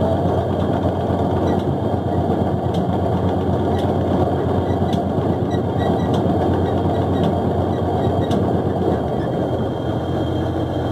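Fishing boat's engine and deck net-hauling winch running steadily, with a constant low hum.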